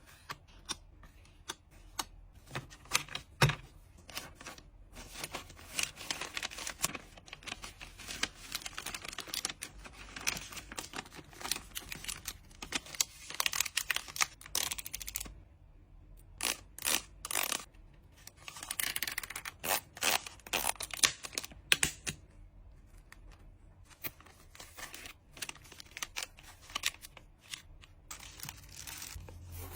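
Trading cards and plastic packing materials being handled: irregular crinkling and tearing with many sharp taps and clicks, pausing briefly a couple of times.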